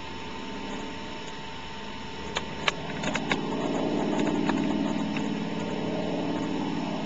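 Single-engine de Havilland Canada DHC-2 Beaver topdressing plane's radial piston engine droning as it passes low. The drone swells about three seconds in and eases near the end. A few sharp clicks come between two and a half and three and a half seconds in.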